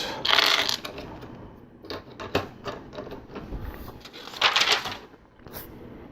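Plastic LEGO pieces clicking and rattling as they are handled and pressed into place, with two short bursts of rattling, about half a second in and again about four and a half seconds in.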